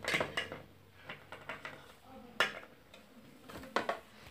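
Small plastic Littlest Pet Shop toy figures and playset furniture clicking and tapping on a tabletop as they are handled: a few separate light knocks near the start, one about two and a half seconds in, and two near the end.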